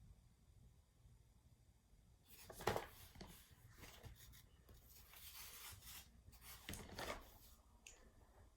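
Close rubbing and rustling of handling noise, with a sharp knock about a third of the way in and another rustling burst near the end, after a couple of near-silent seconds.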